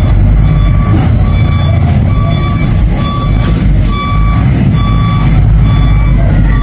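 Electronic beeper sounding short, evenly pitched beeps about twice a second, over a loud, steady low rumble.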